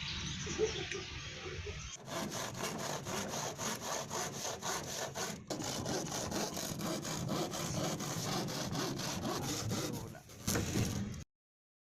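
Hand saw cutting through wood in quick, even back-and-forth strokes, starting about two seconds in and cutting off suddenly near the end.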